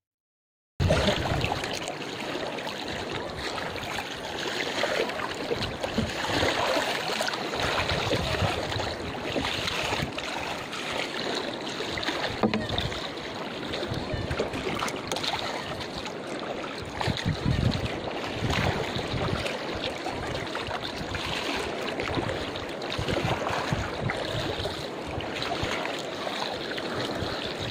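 Water splashing and lapping against a small outrigger canoe as it is paddled by hand, the wooden paddle dipping and pulling through the water. It starts suddenly about a second in.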